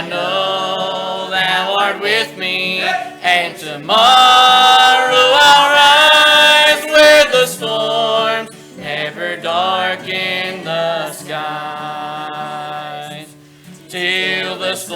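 Gospel hymn sung by a small vocal group, growing loudest from about four to seven seconds in.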